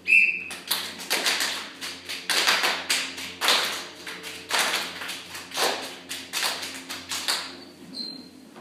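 A student drill team's percussion routine: group claps and stomps on the stage floor in a driving rhythm, a strong hit about once a second with quicker taps between, after a brief high squeak at the start.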